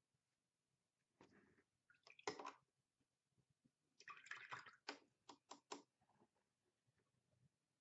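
Watercolour brush being rinsed in a jar of water: a short slosh about a second in and a louder one about two seconds in, then a run of quick swishes and taps around four to six seconds in.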